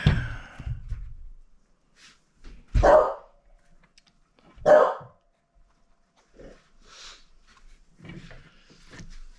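A dog barking: three loud single barks a couple of seconds apart, then a few fainter sounds.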